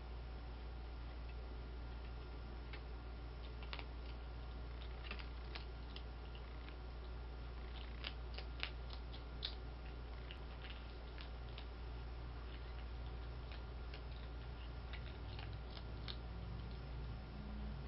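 Skunk crunching dry cat food: irregular small crunches and clicks, with a quick run of them a little past halfway, over a steady low hum.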